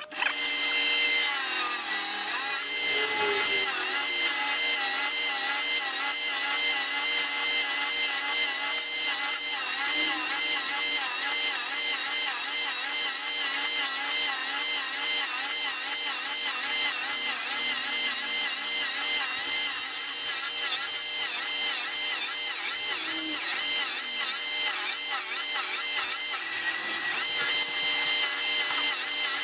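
A power tool cutting or shaping wood, running without a break, with a wavering rubbing tone that rises and falls a few times a second.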